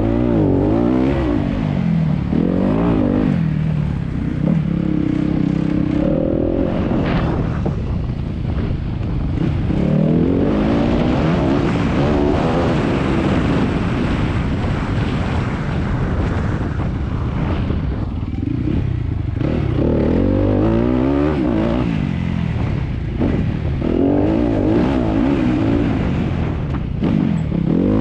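Enduro motorcycle engine ridden hard on a dirt trail, its revs climbing and dropping again and again as the rider accelerates, shifts gear and backs off.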